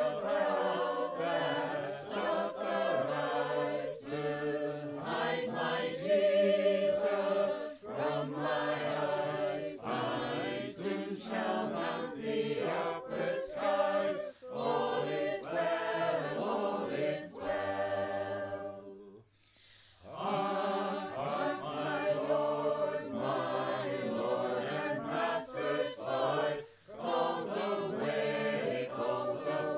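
Mixed choir of men and women singing Sacred Harp shape-note music a cappella in four parts (bass, tenor, alto, treble), the voices recorded separately at home and mixed together. The singing stops for a moment a little after the middle, then carries on.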